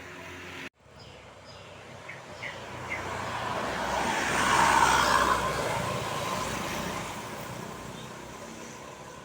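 A tour bus passing by on the road: its engine and tyre noise swells to a peak about halfway through, then fades as it drives away.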